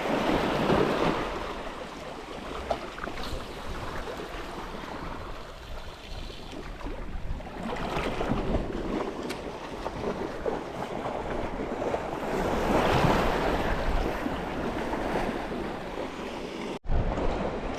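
Sea waves washing in with a steady rush of moving water that swells and eases a few times, with wind buffeting the microphone. The sound cuts out abruptly for an instant near the end.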